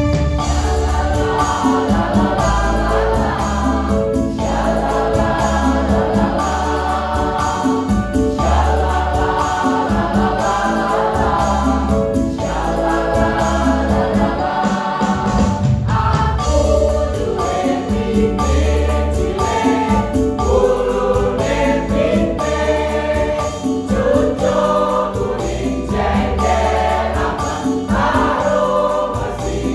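Mixed choir of men and women singing a lively song together in phrases with short breaks about every four seconds, over instrumental backing with a prominent bass line.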